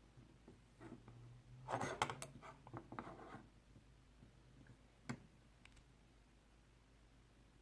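Faint handling noise from a small K-D Manufacturing No. 430 metal hand tool: a cluster of clicks and rubs about two seconds in, then a single sharp click a few seconds later.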